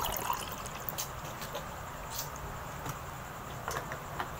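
Close-up eating sounds: chewing and lip smacking, with a few short sharp clicks scattered through, the loudest at the very start.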